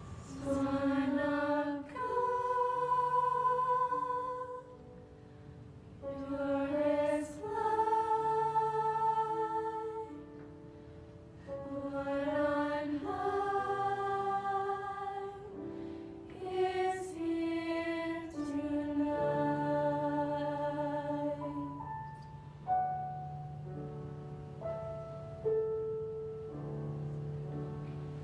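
High school mixed choir of girls and boys singing a Christmas song in loud phrases with short breaks between them; after about twenty seconds the singing turns softer, with longer held notes.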